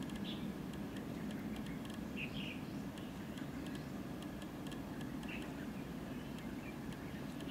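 Quiet outdoor background: a steady low rumble with scattered faint, short bird chirps and a few light ticks.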